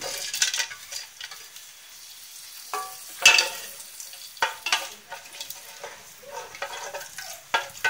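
Whole spices such as cinnamon sticks tipped into hot oil in an aluminium pot, sizzling as they fry, and stirred with a metal spatula that scrapes against the pot in several bursts. The loudest scrape comes about three seconds in.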